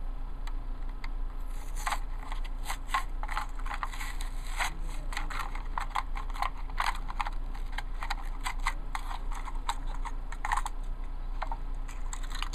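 Toy packaging being opened and handled: a cardboard box and a clear plastic blister tray crinkling and clicking in dense, irregular bursts, which ease off near the end. A steady low electrical hum runs underneath.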